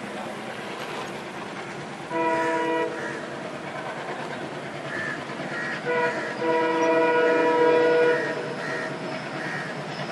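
WDM-3D diesel locomotive's horn sounding over the steady running noise of the approaching train. A short blast comes about two seconds in, then a longer blast of about two seconds starting near the six-second mark.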